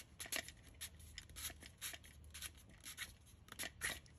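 Plastic diesel fuel filter canister being twisted by hand against its housing: a run of faint, irregular clicks and scrapes as it is unscrewed.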